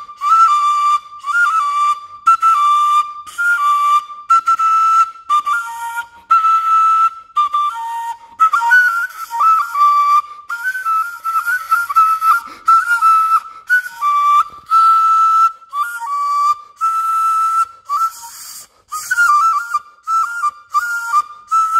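A small carved whistle blown in short, breathy notes mostly on one high pitch, with small slides and occasional drops to a lower note, broken by frequent short pauses for breath.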